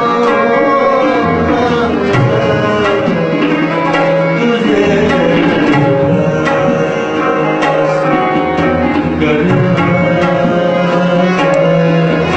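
Tabla being played in a music performance, its strokes over held melodic notes from an accompanying instrument.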